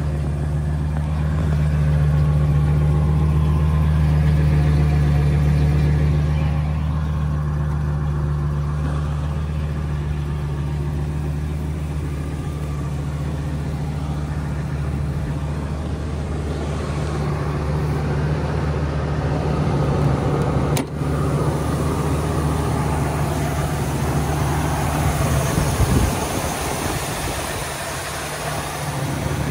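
Ford Triton V10 gasoline engine of a 2003 F450 Super Duty truck idling steadily.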